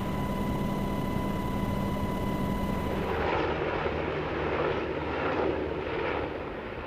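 UH-60 Black Hawk in flight, heard from inside the cabin: rotor and engine noise with a steady high transmission whine. About three seconds in it cuts to several Black Hawks flying overhead in formation, their rotor noise swelling and fading in pulses.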